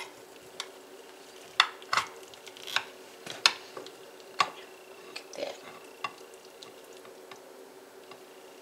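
Metal serving spoon clinking and scraping against a glass baking dish and plate while pot pie is scooped and served: sharp clinks about once a second for the first six seconds, then fewer and fainter, over a steady low hum.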